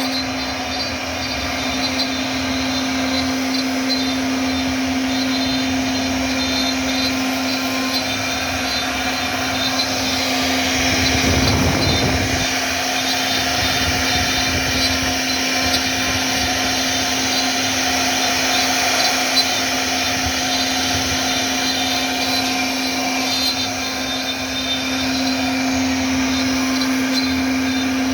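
CNC router spindle running at a steady whine while the bit cuts a 3D finishing pass, with a brief swell in the cutting noise a little before halfway.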